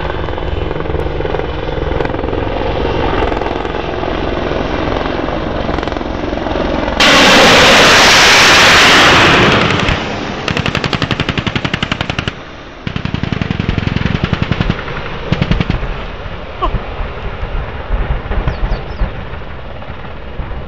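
AH-64 Apache attack helicopter running, then a sudden, very loud rushing blast about seven seconds in that lasts a few seconds, fitting a rocket launch. Several rapid strings of sharp shots follow, with a few separate bangs near the end.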